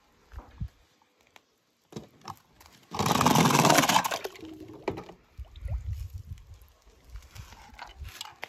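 A die-cast toy combine harvester rolls off a ramp into a shallow plastic tub of water, with a loud splashing burst about a second long starting about three seconds in. Small knocks and low scraping of toy cars being handled on the ramp come before and after.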